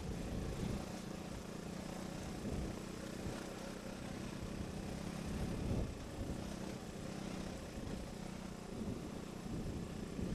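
Trail motorcycle engine running at steady, fairly low revs as the bike rides along a rough dirt lane, with uneven low rumble underneath.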